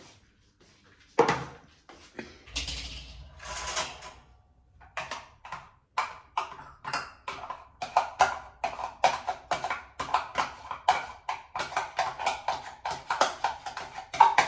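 Kitchenware being handled at a counter: one sharp knock about a second in, a short rustle, then quick, even tapping, about two to three strikes a second, that keeps going to the end.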